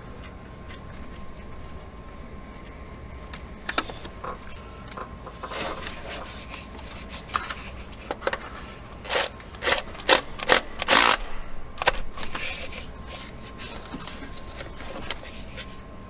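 Socket ratchet clicking as it tightens the bolt that holds a ground wire's ring terminal to the engine block. There are scattered clicks at first, then a cluster of short, quick bursts of clicking a little past the middle.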